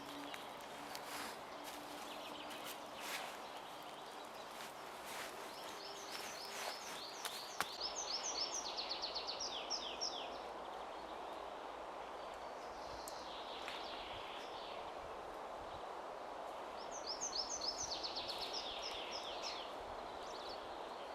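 A songbird sings two short phrases of rapid repeated notes, each falling in pitch: one about a third of the way in and one near the end. Under it runs a steady rustling background, with scattered clicks and knocks in the first few seconds.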